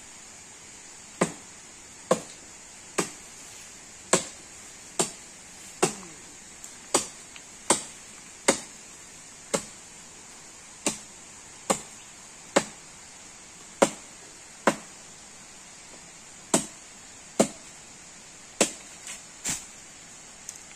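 Tree branches being chopped with a hand blade: sharp, regular strokes a little under one a second, with a couple of short pauses.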